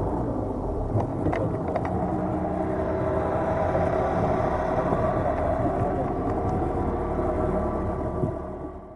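Small boat's engine running steadily underway, with wind and water noise; it fades and cuts off near the end.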